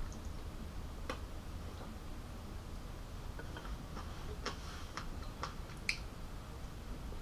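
Scattered, irregular soft clicks and ticks of someone eating rice by hand from a ceramic plate, fingers working the rice and mouth chewing, with a cluster of clicks between about three and a half and six seconds in. A low steady hum runs underneath.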